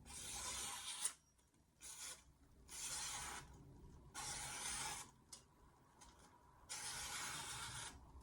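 VG10 stainless steel knife slicing through a sheet of paper in a sharpness test, about five separate dry, hissing cuts with short pauses between them.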